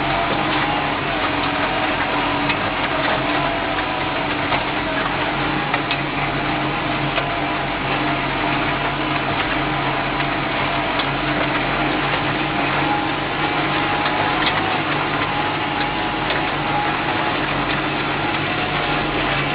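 Case IH JXU105 tractor engine running steadily under load while pulling a Kverneland plough.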